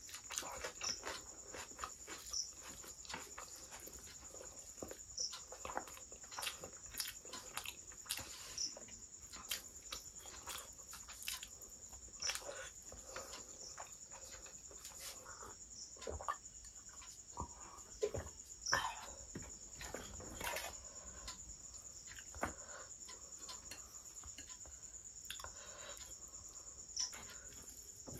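Close-up eating sounds: wet chewing and smacking of mouthfuls of rice and curry, with fingers squelching as they mix rice on the plate, in many short clicks and smacks. A steady high-pitched whine runs under it throughout.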